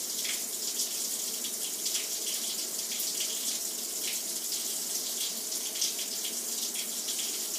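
Mashed ridge gourd paste sizzling in a hot kadai on a high flame as it is stirred with a wooden spatula. The sound is a steady hiss with a few faint scrapes, as the water in the paste cooks off.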